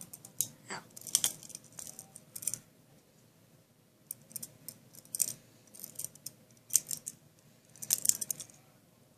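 Practice butterfly knife (balisong trainer) being handled: its metal handles and blade clink and click against each other in scattered short clusters.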